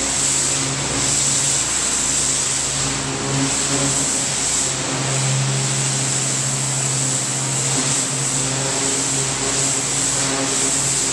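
Pressure washer running steadily: a continuous engine hum under the loud hiss of a high-pressure whirl-tip spray blasting wet concrete.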